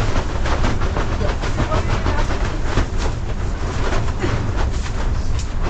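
Heavy rain falling hard: a dense, steady patter of drops over a low rumble.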